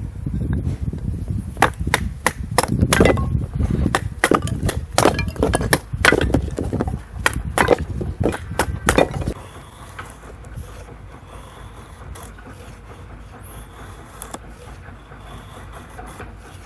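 Wood cracking and snapping: many irregular sharp cracks over a low rumble, stopping abruptly about nine seconds in, leaving a steady low hiss.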